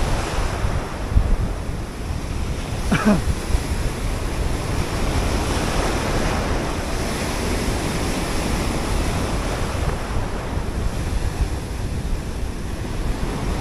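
Sea surf breaking and washing over shoreline rocks, with wind buffeting the microphone. A short pitched sound stands out briefly about three seconds in.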